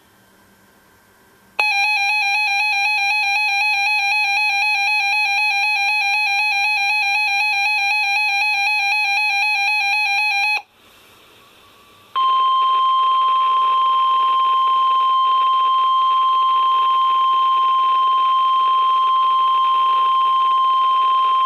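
Two alert signals from NOAA Weather Radio. First a warbling electronic alarm beep for about nine seconds. After a short gap comes the steady single-pitch weather radio warning alarm tone, which goes on for about ten seconds ahead of a flood watch message.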